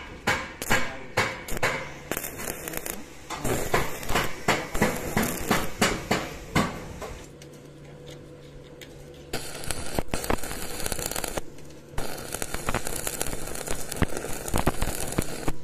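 A run of sharp, irregular knocks and clicks as steel rebar is handled on a steel deck, then the crackle of an electric welding arc in two runs from about nine seconds in, with a low steady hum underneath.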